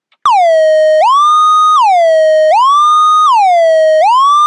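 Synthesizer (AudioKit Synth One) imitating a police siren's wee-woo: a loud buzzy tone alternating between two pitches an octave apart, changing note about every three-quarters of a second. Portamento glide makes each change a smooth slide up or down rather than a jump. It starts abruptly about a quarter second in.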